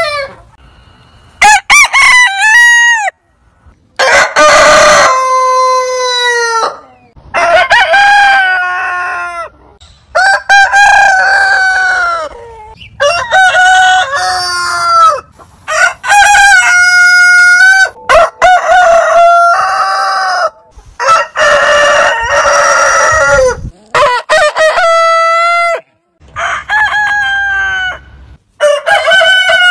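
Different roosters crowing one after another, about ten crows in a row. Each crow lasts two to three seconds, with a held note that falls in pitch at the end.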